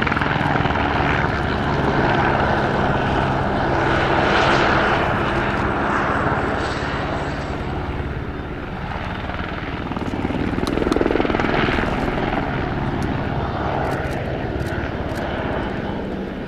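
Military turbine helicopter in flight, its engine and rotor noise steady and loud, swelling twice as it moves about.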